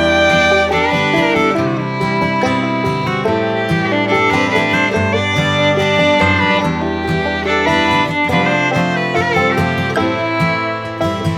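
Instrumental background music, steady and loud throughout.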